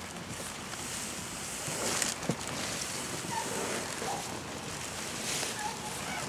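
Steady rushing noise of wind on the microphone, with a single faint knock a little after two seconds in.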